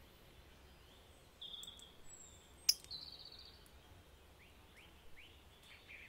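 Squeaky chirping trills from a handheld twist-type bird call being worked in the hand: two short high stuttering trills, about a second and a half and three seconds in, with a sharp click between them. Faint chirps follow near the end.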